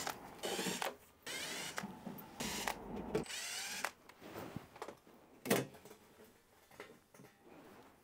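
Cordless electric screwdriver whirring in several short runs, backing out the screws of an air conditioner's wall mounting plate. A single sharp knock comes about five and a half seconds in.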